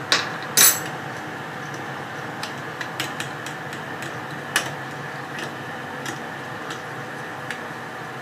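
Spoon clinking against a bowl as coriander chutney is stirred into yogurt for raita: two sharp clinks near the start, then scattered lighter taps, over a steady background hum.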